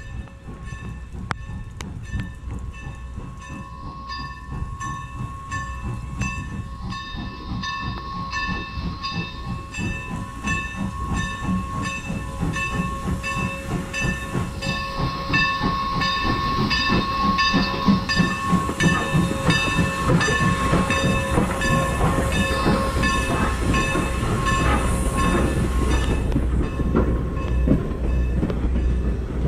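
Steam locomotive pulling in and passing at slow speed with hiss and chuffing, growing louder as it approaches and then passes with its passenger coaches. Through it runs a steady, evenly pulsing ringing.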